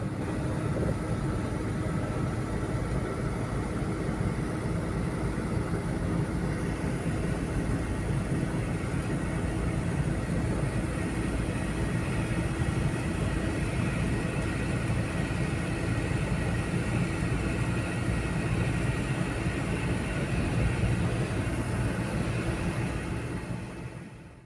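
Ford Everest 2004 automatic SUV with its turbocharged intercooled engine cruising at about 80 km/h, heard from inside the cabin: a steady low engine drone with tyre and road rumble. It fades out near the end.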